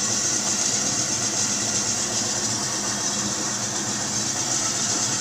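Electric meat slicing machine (an XZ-7 grinder-slicer combination) running steadily while meat is fed through its cutter, a constant motor hum with a hiss over it.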